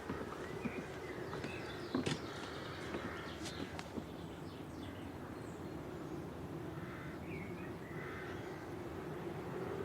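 Birds calling, with crow-like caws, over a steady outdoor background hum, with a few sharp clicks about two seconds in.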